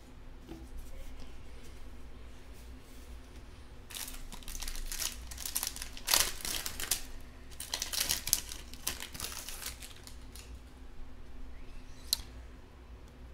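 Foil wrapper of a 2020 Panini Mosaic Football card pack crinkling and tearing as it is opened by hand. It comes as a run of rustling bursts through the middle, loudest about six seconds in, followed by a single sharp click near the end.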